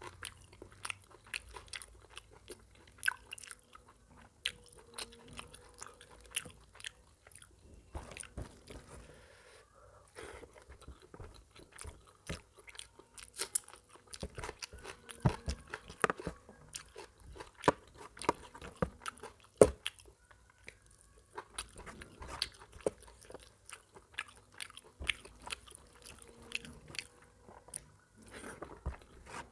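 Close-miked eating sounds of rice and mutton curry eaten by hand: wet chewing and mouth smacking, with the squelch of fingers mixing rice into the gravy. Many irregular clicks and crackles run all through.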